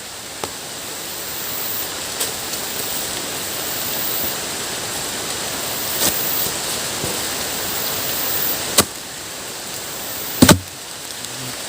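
Steady rushing hiss of heavy rain on the forest, with a few sharp chops of a blade into wood: one about six seconds in, a louder one near nine seconds, and two close together near the end.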